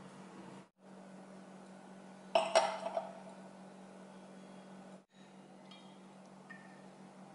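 A glass clinks twice in quick succession against a stone countertop, about two and a half seconds in, ringing briefly, over a faint steady hum.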